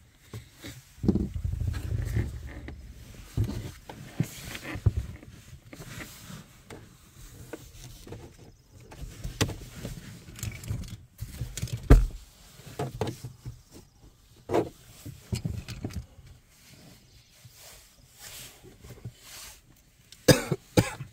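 Plastic dashboard trim panel of a 2015 Hyundai Sonata being worked loose by hand: irregular knocks, clicks and scraping of plastic against the dash, with a sharp knock about halfway through.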